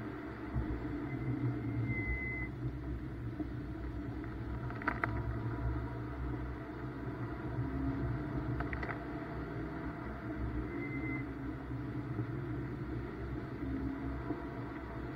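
BMW M2 engine and road noise heard from inside the cabin, running steadily without revving. Two short clicks and a couple of brief high squeaks sound over it.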